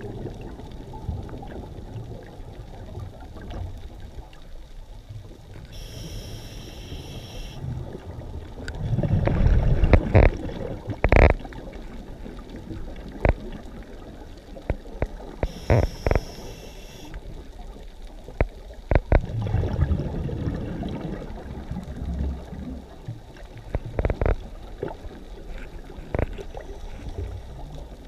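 Scuba diver breathing through a regulator underwater. A hissing inhale comes about six seconds in and again about ten seconds later, each followed a few seconds on by a gurgling surge of exhaled bubbles with sharp crackles and clicks, over a low steady underwater rumble.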